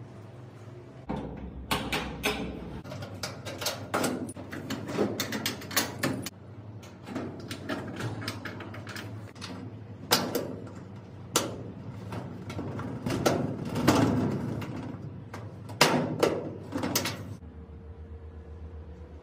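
Glass sliding doors of a metal file cabinet being fitted and slid in their tracks: a run of irregular knocks, clunks and rattles that stops near the end.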